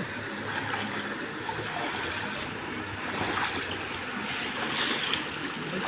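Water sloshing and splashing around a person's legs as they wade through shallow floodwater, a steady watery rushing.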